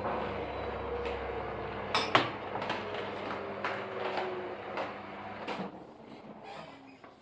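Haier HW80-B14979 front-loading washing machine at the end of a spin, its low motor hum and whine falling away as the drum slows, with scattered clicks and knocks. The loudest knock comes about two seconds in, and the machine grows quieter over the last two seconds.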